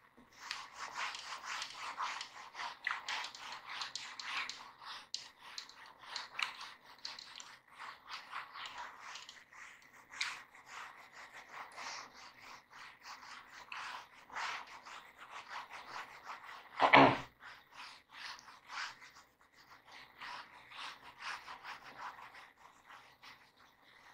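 Whiteboard duster wiping notes off a whiteboard in rapid, repeated rubbing strokes, with one loud knock about two-thirds of the way through.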